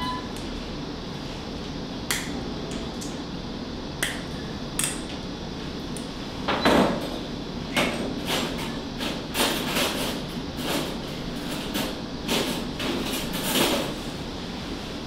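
Steady operating-room background hum with scattered clicks and handling noises from surgical instruments and drapes. A run of rustling begins about halfway through.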